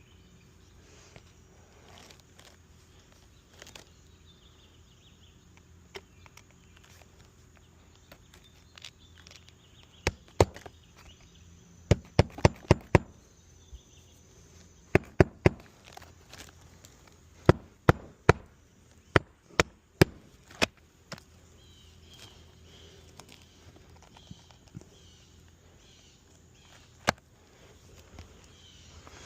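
Hammer strikes driving roofing nails into asphalt shingles, in short groups of sharp knocks, including a quick run of about five blows in a second, with pauses between.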